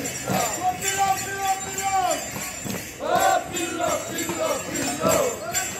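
A group of Romanian New Year urători shouting a rhythmic chant together, a phrase about every second, while bells jingle along in time.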